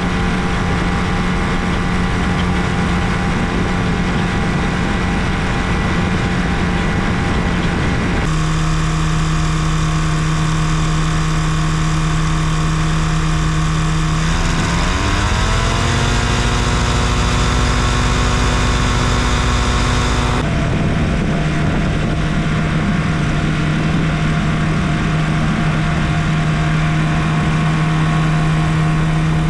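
Challenger II ultralight's two-stroke engine running steadily, then rising in pitch about halfway through as the throttle is opened, and holding at the higher speed. The tone shifts abruptly twice.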